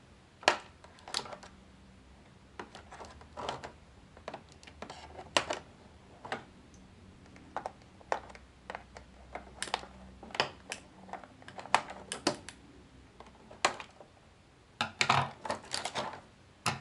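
Small scissors snipping the rubber bands that hold a plastic toy figure in its clear plastic packaging tray, with the tray and figure clicking under the hands. Irregular sharp clicks and snips, with a quick flurry near the end.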